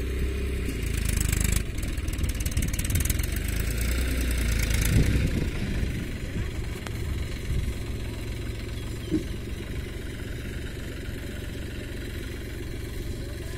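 New Holland tractor's diesel engine running steadily while it drags a rear blade through loose tilled soil. The sound is louder and noisier for the first five seconds, then settles to a quieter steady run.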